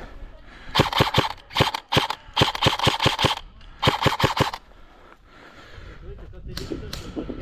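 Airsoft rifle firing four short bursts over about four seconds, each a rapid string of shots at roughly seven a second.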